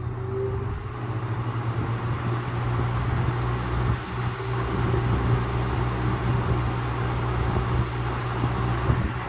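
Vintage Lasko-made Jet 20-inch box fan with a shaded-pole motor running on high speed. A steady motor hum sits under the rush of air from the four-wing blade, which builds over the first few seconds as the blade comes up to speed and then holds steady.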